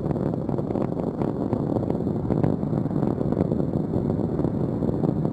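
Space Shuttle rocket engines during ascent: a steady, dense rumble with faint crackling through it.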